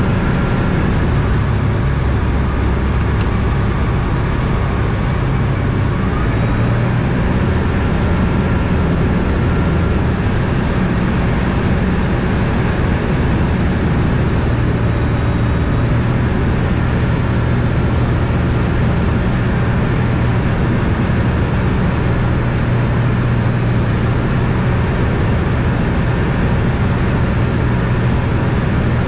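Ikarus C42 ultralight's Rotax engine and propeller running steadily in flight, heard from inside the cockpit; the engine note changes slightly about six seconds in.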